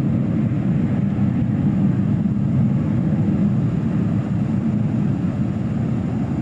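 Boeing 737-200's Pratt & Whitney JT8D jet engines at takeoff power: a steady, loud low rumble. It eases slightly toward the end as the departing jet draws away.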